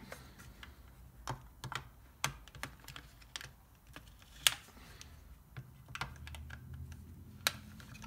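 Scattered light clicks and taps of a flathead screwdriver working the hold-down screws of an HEI distributor cap, with two sharper clicks, one about halfway and one near the end.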